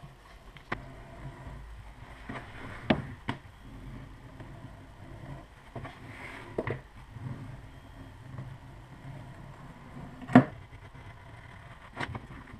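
Tools and leather being handled on a leatherworking bench: scattered sharp knocks and clicks, about half a dozen, the loudest about ten seconds in.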